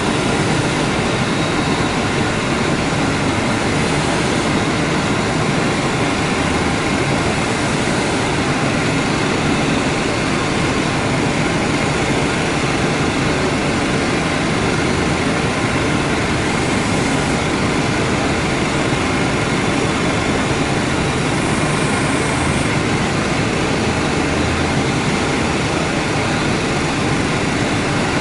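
Bench grinding wheel running steadily, with a small metal Barlow pocketknife part held against its edge and being ground.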